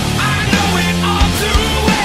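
Hard rock music with heavy drums and distorted guitar.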